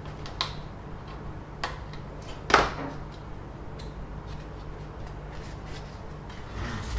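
A few light clicks and knocks, as of small hard objects being handled, the loudest about two and a half seconds in, over a steady low hum.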